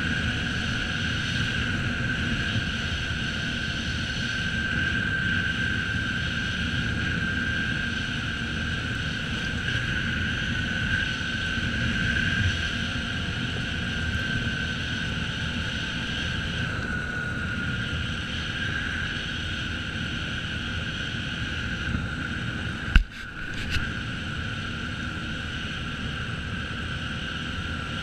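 Can-Am Outlander 400 ATV riding at a steady speed on a gravel track: the engine and drive hold a steady note over a low rumble of tyres and wind. A single sharp knock comes about 23 seconds in, and the sound briefly drops out after it.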